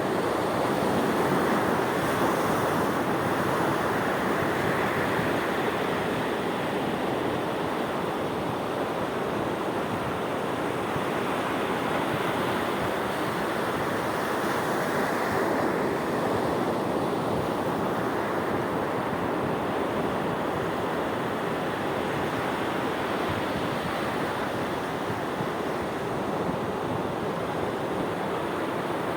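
Sea waves and surf washing in steadily, a continuous rushing wash that swells and eases gently.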